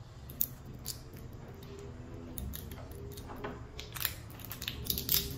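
Hands twisting the metal screw cap of a small glass cachaça bottle, giving scattered sharp clicks and scrapes, more of them near the end.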